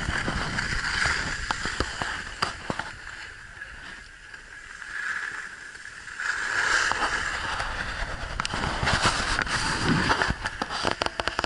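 Skis sliding and scraping over packed snow on a downhill run, with wind rumbling on the microphone. The scraping eases for a few seconds in the middle and picks up again, with a few sharp clicks and knocks near the end.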